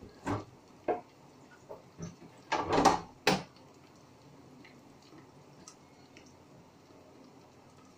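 Kitchen vessels handled on the counter: a few separate knocks, then a louder short clatter about three seconds in, followed by quiet room tone.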